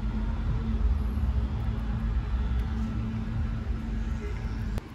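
A road vehicle's motor running steadily with a low hum, which cuts off abruptly near the end.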